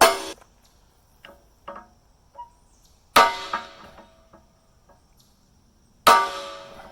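Hammer blows on the steel teeth of an excavator bucket: three hard ringing strikes about three seconds apart, with a few lighter knocks in between.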